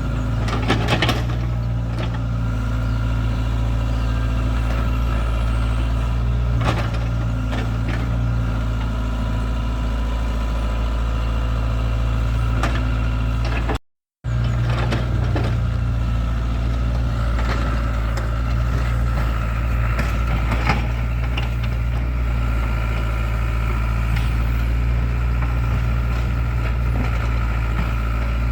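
Excavator's diesel engine running steadily, with a few short knocks from the working machine. The sound drops out completely for a moment about halfway through.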